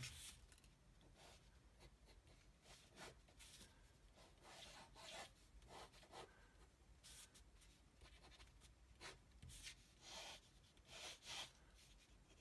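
Faint ballpoint pen strokes scratching across paper, quick irregular lines of rough freehand sketching.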